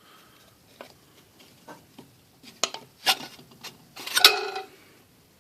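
Metal parts of an air compressor pump clicking and clinking as they are handled during disassembly, with a louder ringing clink about four seconds in.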